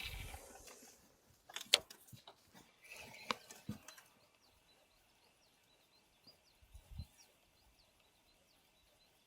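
A small bird chirping faintly and repeatedly, short rising notes a few times a second, heard through the second half. In the first few seconds, rustling handling noise and a few sharp clicks, the loudest about two seconds in.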